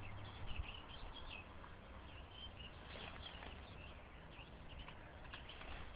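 Small birds chirping and calling in quick short notes, over a low steady rumble.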